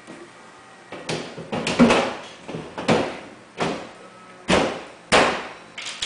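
Knocks and bumps from a quartered white oak cabinet being handled as its glass-fronted upper section is taken hold of and moved: about eight irregular wooden knocks over roughly five seconds, starting about a second in.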